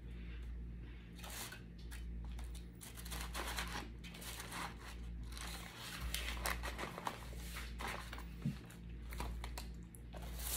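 Packaging crinkling and rustling as it is handled, with scattered clicks, over a steady low hum.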